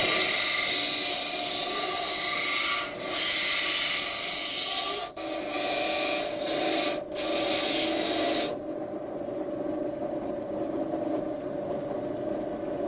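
Bench grinder's abrasive wheel grinding a carbon-steel knife blank: a loud steady hiss of steel against the wheel, broken briefly three times as the blade is lifted. About two-thirds in the grinding stops and the grinder keeps running with a steady hum.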